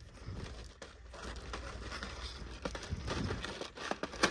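Plastic packets of hair beads crinkling and rustling as they are handled, with scattered clicks and one sharp click near the end.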